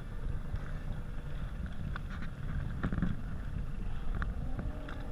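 Low rumbling noise of wind buffeting the microphone over open water, with a few brief knocks or splashes.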